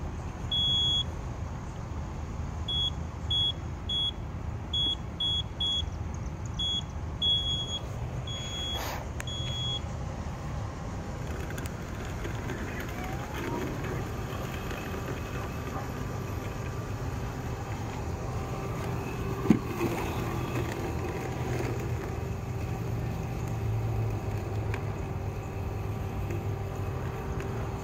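Yoleny robotic lawn mower driving along its boundary wire with a steady low motor hum, giving a run of short, high electronic beeps for about the first ten seconds. A single sharp knock comes about two-thirds of the way through.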